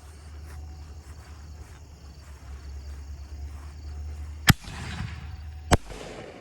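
Two sharp firework bangs about a second and a quarter apart, each followed by a trailing echo, from consumer aerial shells. Before them there is a steady low rumble.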